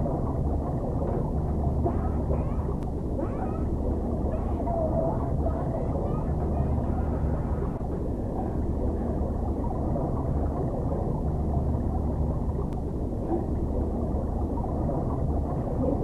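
A boy's yelling, heavily muffled and warbling through an 'underwater' audio effect that cuts away all the highs, over a steady low rumble.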